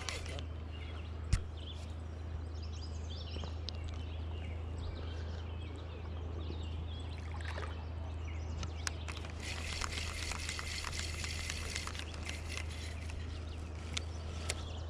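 River water running and trickling, with a louder hissing stretch about ten seconds in.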